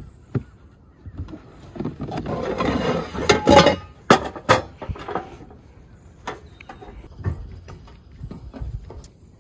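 Scraping and rustling as a camp stove is lifted out of a plastic storage tote, then several sharp knocks about four to five seconds in as it is set down on a wooden picnic table. Lighter clicks and taps follow as a small propane canister is handled and fitted to the stove.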